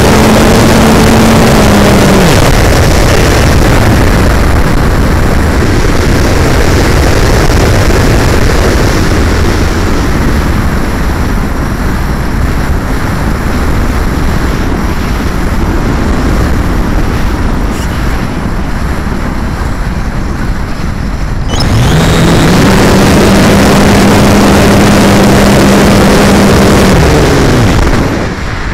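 Wind rushing over an onboard camera on a Plasma 2 electric hotliner glider, loud throughout. At the start the electric motor and propeller whine steadily, then wind down about two seconds in, and the plane glides on in the wind noise. About 22 seconds in the motor spins up again, runs steadily for about five seconds and winds down near the end.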